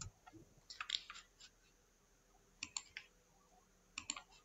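Computer keyboard keys and mouse buttons clicking in three short groups: near the start, in the middle and near the end.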